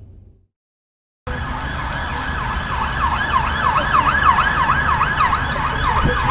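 The last of a ship's horn fades out. After about a second of silence, a police car siren starts over traffic noise: a fast up-and-down yelp, about two to three sweeps a second, with a steady tone beneath it.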